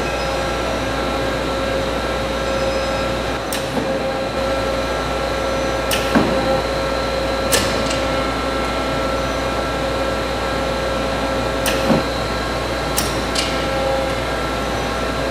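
Hankook machining center running with a steady mechanical hum and several steady tones. About seven sharp clicks or knocks come at uneven intervals, a few seconds apart.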